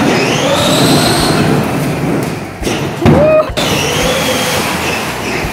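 Large cardboard shipping box dragged by a rope across a concrete floor behind a child's 12-volt ride-on truck: a steady scraping rumble that lasts about five seconds.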